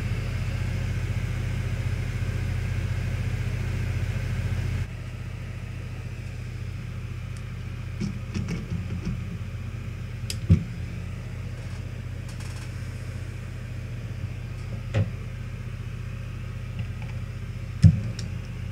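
Steady whir of a running fan over a low electrical hum, cutting off abruptly about five seconds in. After that a fainter hum remains, with a few sharp light clicks, one of them as metal tweezers press on the freshly soldered MOSFET.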